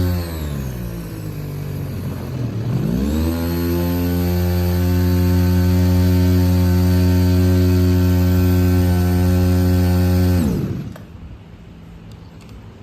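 Robin RS233-2 backpack power sprayer's small engine running at speed, throttled down to a low idle, then revved back up about three seconds in and held steady. It is shut off about ten and a half seconds in, with the sound dying away quickly.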